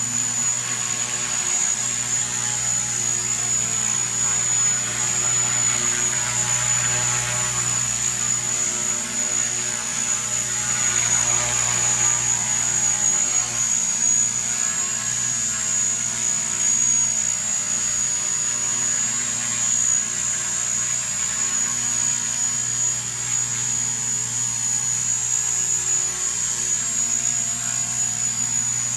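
Small radio-controlled model helicopter hovering, its rotor giving a steady low hum with a high-pitched whine held over it.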